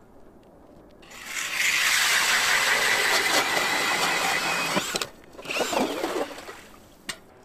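Powered ice auger boring through lake ice: the motor starts about a second in and runs with a steady whine for nearly four seconds. It drops off, runs again briefly with its pitch wavering, then stops, followed by a single sharp click near the end.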